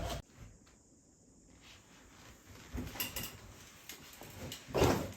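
Small handling noises on a workbench: a few light knocks and rustles of parts and wires being moved, the loudest a short knock near the end.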